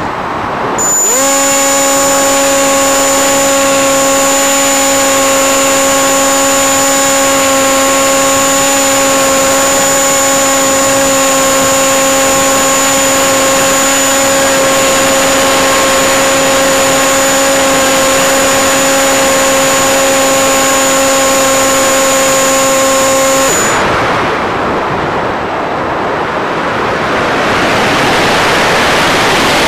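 Model airplane's motor and propeller whining at a steady pitch under a loud rush of air past the onboard microphone. About three-quarters of the way through the whine cuts off suddenly, leaving only the wind rush as the plane glides with the throttle off; the rush dips, then swells again.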